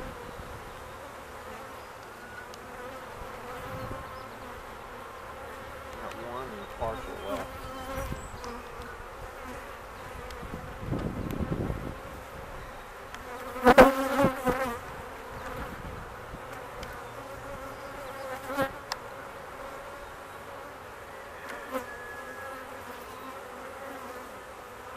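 Honeybees buzzing around an open hive in a steady hum, with a louder, wavering buzz a little past halfway through. A few light knocks come from wooden frames being worked out of the hive box.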